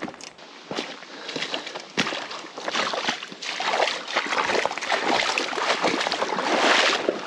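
A person wading through a cold river, the water splashing and sloshing around the legs with each step, getting louder as it goes.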